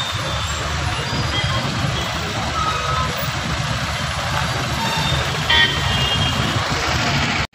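Steady low rumble of idling lorry and autorickshaw engines in stopped traffic, with a short high beep about five and a half seconds in.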